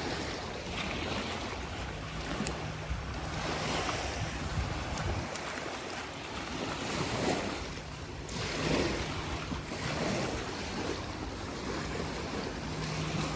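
Small lake waves washing against the Lake Michigan shore in swells every second or two, with wind rumbling on the microphone.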